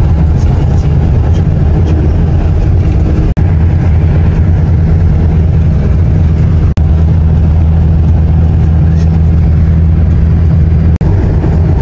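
Steady engine drone and road noise inside a moving bus's cabin, with a strong low rumble. It breaks off for an instant three times.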